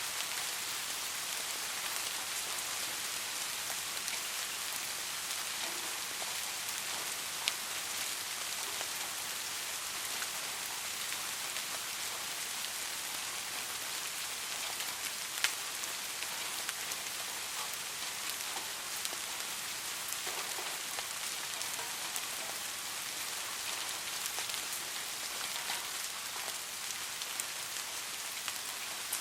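Steady rain falling on a surface: an even hiss with scattered sharper drop hits, two louder ones about a third and halfway through.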